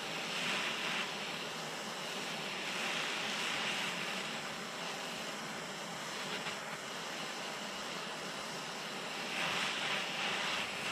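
Hand-held propane torch flame hissing steadily as it heats a drive shaft U-joint yoke to melt out the injected plastic retainers.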